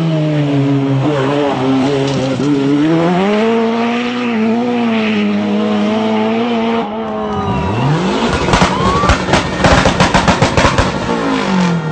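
Ford Sierra Cosworth rally car's engine at full throttle as it passes and pulls away, its pitch rising and falling with each gear change. About seven seconds in, another rally car revs hard in place with a quick string of loud bangs and pops from its anti-lag system.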